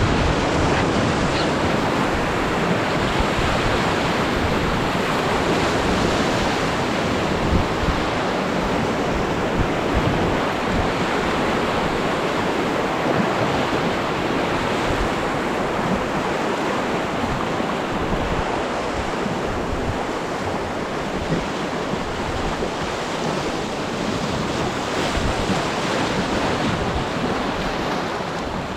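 Whitewater rushing through a river rapid, a loud steady wash of water, with wind noise on the microphone.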